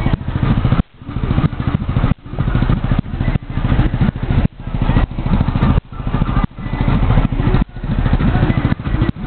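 Vehicle engine running steadily at cruising speed on the move, with the sound dipping sharply for a moment every second or so.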